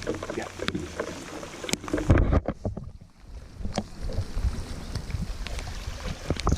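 Wind rumbling on the microphone, with scattered knocks and clicks and a louder bump about two seconds in.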